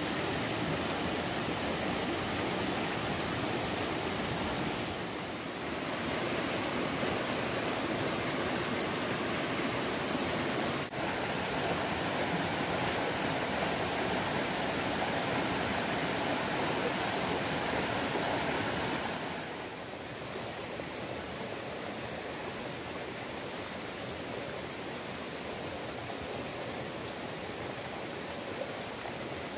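Steady rush of a flowing stream, a little quieter from about two-thirds of the way through.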